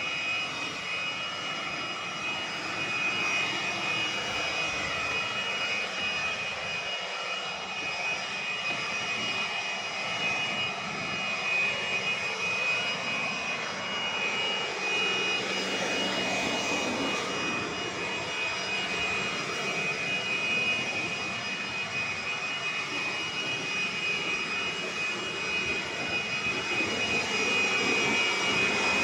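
Vacuum cleaner running steadily: a high, even motor whine over the rush of suction, which rises and falls as the nozzle is worked.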